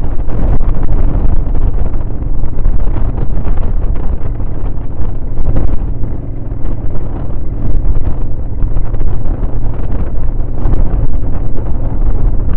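Motorcycle riding at speed on a dirt track, loud wind buffeting on the microphone over the engine's steady drone.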